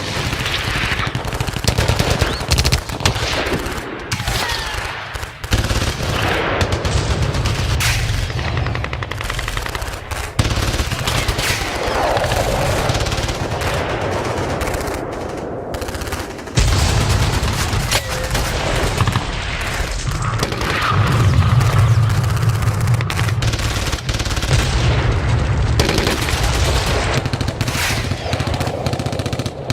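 Battle-scene gunfire sound effect: continuous bursts of automatic machine-gun fire and rifle shots, with booming explosions and a heavy low rumble in stretches.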